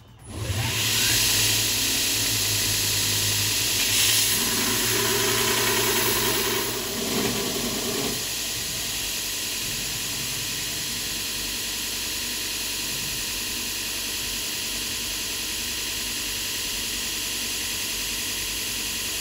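A power tool cutting steel plate runs with a steady hissing whir that starts suddenly. It is louder for about the first eight seconds, then settles to a lower, even level.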